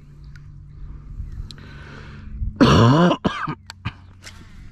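A person clears their throat once with a short, loud throaty grunt about halfway through. A few sharp clicks follow, over a steady low hum.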